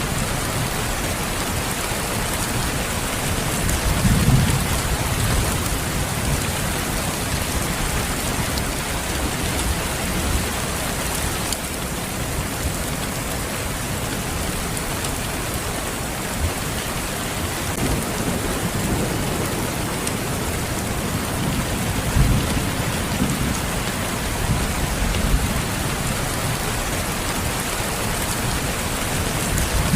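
Steady heavy rain falling, a dense even hiss, with low rumbles of thunder swelling up a few times, around four seconds in and again in the second half.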